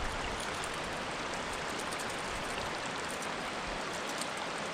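Small creek flowing over rocks: a steady rush of moving water.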